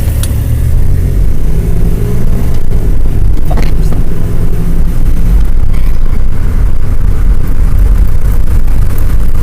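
Vehicle on the move: a steady, loud low rumble of engine and wind noise, with a couple of faint clicks.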